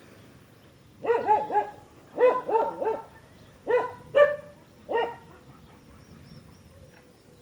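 A dog barking: about nine sharp barks in quick runs of two or three, starting about a second in and stopping after about five seconds.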